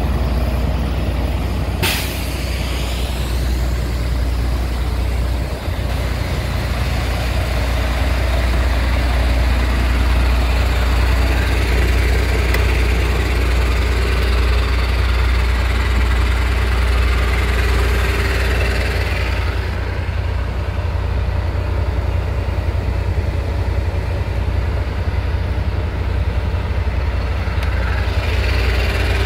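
MAN 19.414 tractor unit's six-cylinder diesel engine idling steadily, with a sharp burst of compressed air hissing from the truck's air system about two seconds in.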